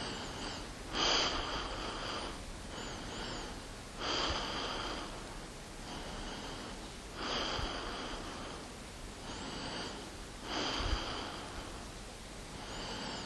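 A person breathing in and out in a slow, even rhythm, about one breath every three seconds, each cycle a louder rush of air followed by a softer one.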